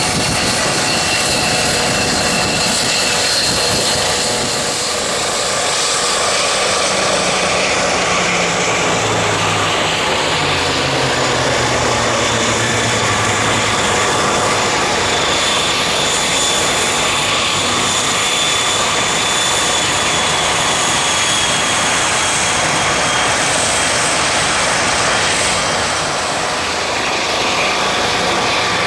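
Aircraft engine noise from an airplane in flight, loud and steady throughout, with a few held tones that slowly glide in pitch as it moves.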